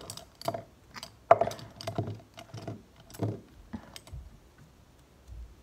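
A series of irregular light clicks and taps, about a dozen in the first four seconds, growing fainter toward the end.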